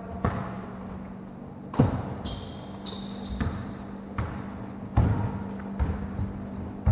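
Basketball bouncing on a hardwood gym floor during dribbling: irregular sharp thuds, with short high sneaker squeaks in between and a steady low hum underneath.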